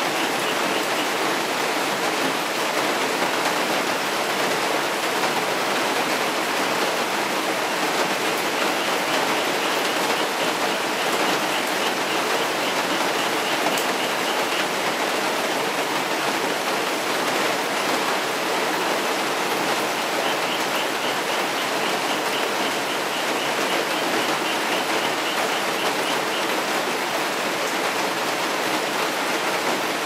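Heavy rain pouring down steadily, with frogs calling through it: runs of rapid, evenly spaced croaks, about ten seconds in and again about twenty seconds in.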